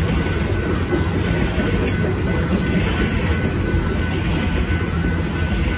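Covered hopper cars of a freight grain train rolling through a grade crossing: a steady low rumble of wheels on rail with clickety-clack, and a faint steady high tone over it.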